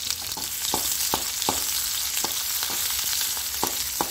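Chopped onion sizzling in hot oil with cumin seeds in a kadhai, a steady hiss, while a metal spatula stirs it and knocks against the pan several times.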